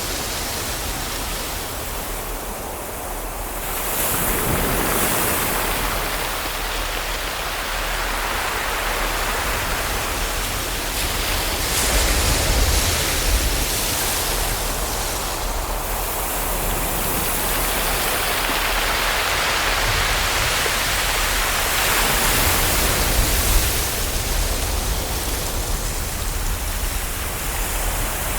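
Ocean waves washing onto a shore: a continuous rushing surf that swells and ebbs every several seconds.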